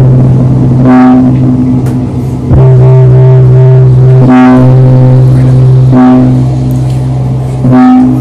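Very loud live electronic music: a steady deep bass drone, with a bright pitched synth note that comes back about every second and a half to two seconds.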